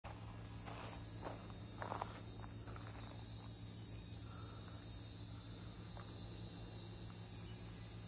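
Hieroglyphic cicadas (Neocicada hieroglyphica) singing: a steady, unbroken high-pitched song that swells over the first second or so and then holds level.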